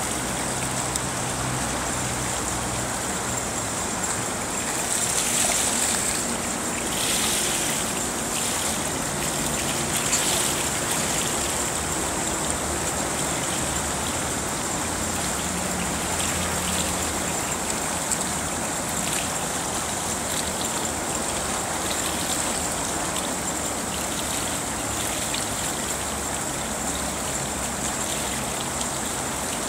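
Steady wash of moving pool water as a child swims, swelling louder a few times in the first ten seconds or so.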